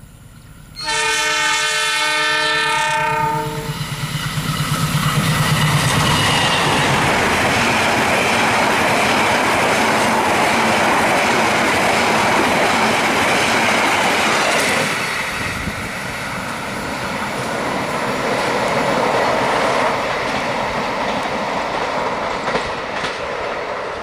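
Indonesian KAI diesel locomotive sounding one long horn blast of about three seconds as it approaches at speed. Then the locomotive's engine and the long rake of passenger carriages rush past close by, with the wheels rumbling and clacking on the rails.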